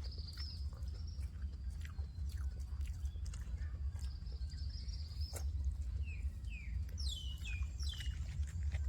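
Small birds singing: a warbling trill at the start and again about four seconds in, then falling chirps and a quick run of descending calls near the end. Scattered soft clicks of eating and a steady low rumble run underneath.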